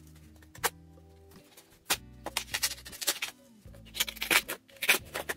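A utility knife cutting and scraping through a cardboard book mailer in short, scratchy strokes, over quiet background music with low sustained tones.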